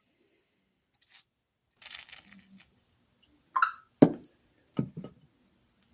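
Small metal parts and tools handled on a workbench: a short scrape, a brief squeak, then a few sharp knocks, the loudest about four seconds in.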